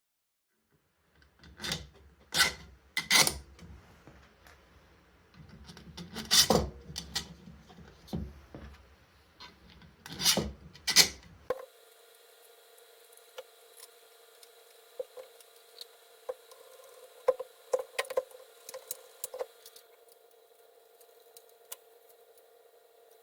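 Hard plastic parts being handled and fitted together: sharp clicks, knocks and scraping. About halfway through they give way abruptly to a steady hum with a few light ticks.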